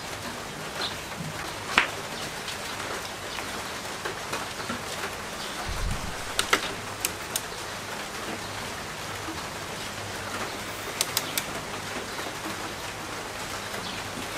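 Hans click-type torque wrench being pulled on a motorcycle swing-arm axle nut, with several sharp clicks over a steady hiss, among them the wrench's click as it reaches its set torque of 53 Nm. There is a dull bump about six seconds in.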